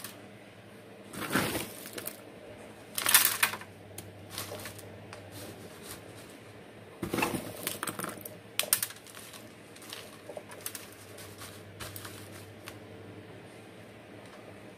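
Dry orchid bark substrate with sphagnum moss rattling and crunching against a plastic cup and box as it is scooped by hand and packed around an orchid. It comes as scattered short bursts, the loudest about a second in, at three seconds and around seven to nine seconds.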